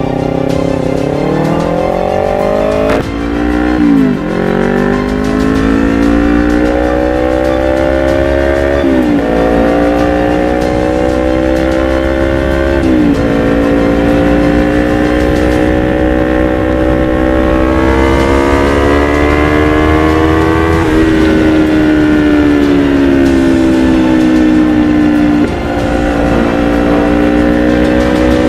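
Kawasaki Ninja 250 FI's parallel-twin engine through an Akrapovic GP full-system exhaust, accelerating hard. Its pitch climbs and drops back at each gear change, four or so times, then eases off and settles to a steadier note.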